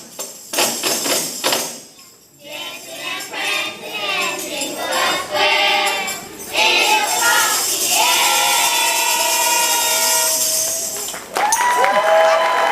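Children's choir singing with tambourines: sharp tambourine shakes and hits for the first couple of seconds, then singing that moves into long held notes, with a new held chord starting near the end.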